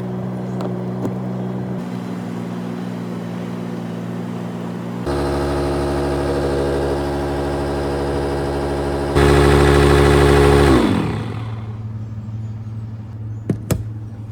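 Electric paddleboard inflation pump running steadily, growing louder in two steps, then winding down in pitch and stopping about three quarters of the way through as the inflation is switched off. A low steady hum remains after it stops, with a few clicks near the end.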